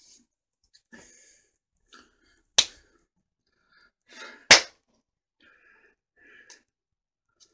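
Two sharp hand slaps about two seconds apart, with faint breaths and small mouth noises around them.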